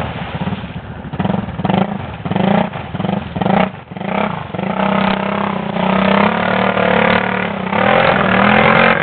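Arctic Cat 650 ATV engine revving in quick repeated bursts on the throttle, then held at higher revs through the second half, as the quad works through mud and ice.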